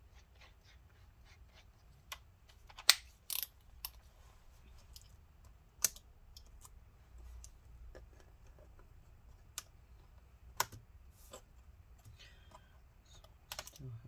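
Irregular light clicks and taps of small hand-tool work on the plastic keyboard deck of a laptop as tiny fasteners holding the keyboard are worked loose, with a few sharper clicks among them.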